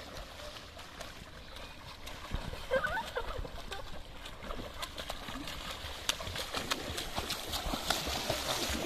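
Pool water splashing and churning as a child kicks and paddles across a swimming pool on an inflatable float, with many small sharp splash ticks. A brief faint voice comes in about three seconds in.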